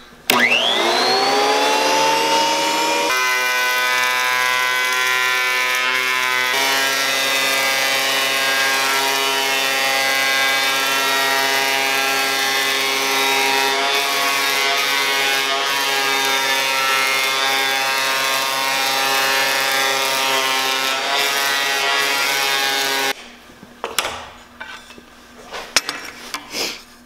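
Delta benchtop thickness planer switched on: the motor spins up with a whine rising in pitch, then runs at a steady loud drone while a board is fed through, its tone changing a few times. It cuts off suddenly about 23 seconds in, followed by a few light knocks and rubbing as the board is handled.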